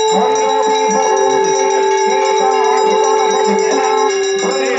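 Temple bells ringing continuously during the ritual bathing of the deities, with two long held tones that overlap and a regular beat underneath.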